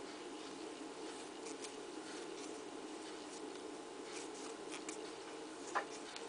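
Faint scratching and light ticks of a crochet hook drawing yarn through loops while chaining, over a steady low hum; one sharper click near the end.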